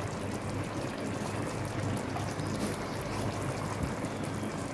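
Chicken in gravy simmering in a wide steel pan on a gas stove: a steady bubbling hiss.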